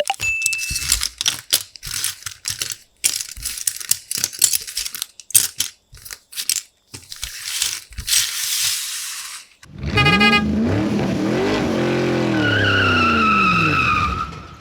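Quick irregular clicks and rattles, then, about ten seconds in, a vehicle engine revving up and down with a high tyre squeal that slides downward near the end.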